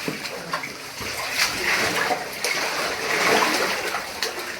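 Shallow cave water splashing in irregular surges as people wade and move through it.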